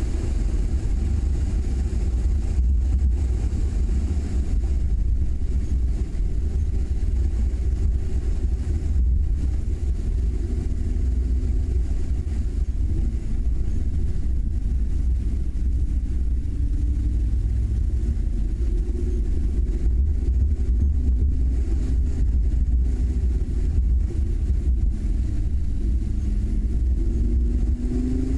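A car driving at speed on a winding road, heard from a camera mounted outside the car: a steady, heavy low rumble of wind on the microphone and road noise, with the engine's note faintly rising and falling as it changes speed, climbing near the end.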